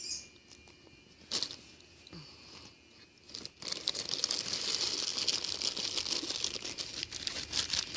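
Packaging crinkling as it is handled and opened, a dense crackling rustle that starts about halfway through and keeps on, after a faint knock near the start.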